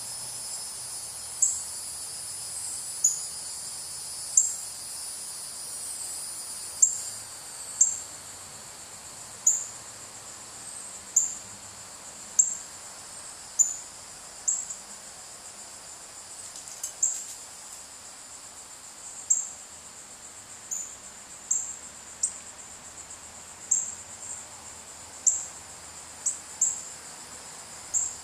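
Outdoor insect chorus: a steady high drone that drops away about seven seconds in, with a short sharp high chirp repeated roughly every second or so throughout.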